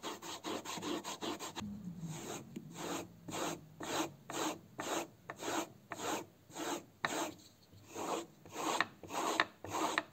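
A bar of GOI polishing paste rubbed quickly back and forth on a leather strop, then, about one and a half seconds in, a grafting knife blade stropped along the pasted leather at about two rubbing strokes a second, honing the edge after the whetstone.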